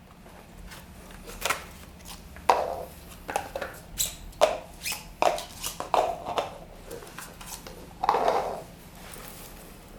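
A series of irregular light knocks and clicks, about a dozen, with a short scuffing sound just after eight seconds in.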